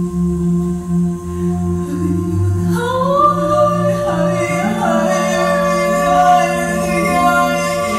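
Unaccompanied voices improvising together: a steady low drone of held tones, joined about three seconds in by a higher voice that slides up into a long sustained note, with other voices sliding and weaving around it.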